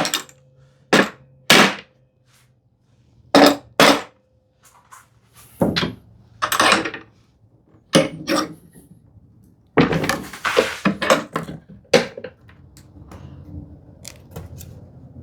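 Sharp wooden knocks and taps: two pairs in the first four seconds, then a cluster of duller knocks with scraping and rubbing. These come from a freshly glued mortise-and-tenon frame being handled and pushed together during glue-up.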